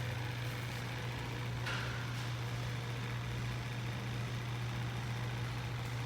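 A steady low hum like an idling engine, with a brief hiss a little under two seconds in.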